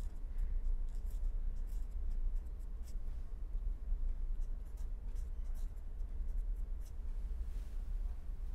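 Marker pen writing on paper in many short, quick strokes, over a steady low hum.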